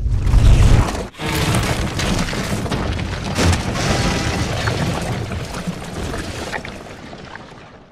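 Film sound effects: a deep boom lasting about a second, then a long stretch of crashing and crumbling debris with sharp cracks, fading out near the end.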